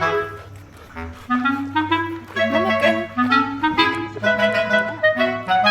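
Background music: a bright, bouncy melody led by a clarinet-like woodwind over a steady low bass line.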